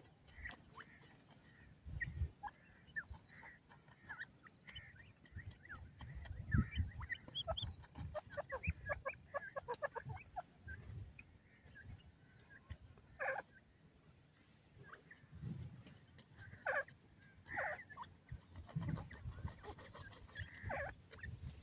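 Young grey francolins giving soft clucks and short high chirps, with a quick run of chirps about eight to ten seconds in. Low thuds and scuffling in dry dirt come between the calls.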